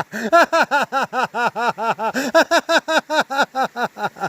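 A person's voice making a rapid, even string of short pitched 'ha' sounds, about six or seven a second, like a sing-song mock laugh.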